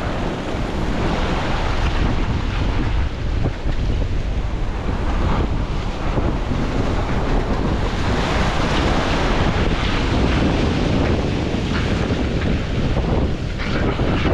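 Surf breaking and washing around the boulders of a rock jetty, with wind buffeting the microphone.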